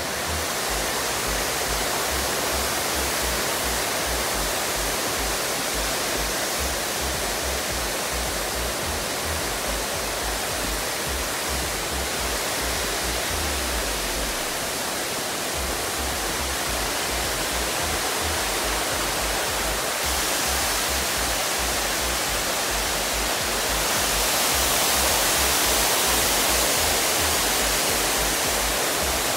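Steady rushing noise with an uneven low rumble underneath, growing brighter and a little louder near the end.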